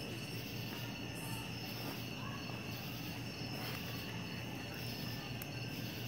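A steady chorus of crickets and other night insects trilling, over a low steady hum.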